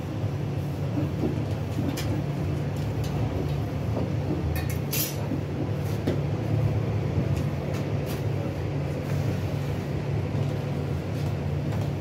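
Bakery machinery running with a steady low rumble, with a few sharp clicks and knocks over it, the strongest a short clatter about five seconds in.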